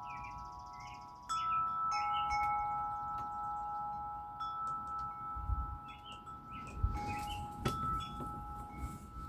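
Metal wind chimes ringing, several tones struck together and left to ring, with fresh strikes about a second and two seconds in. Low wind gusts on the microphone come in during the second half.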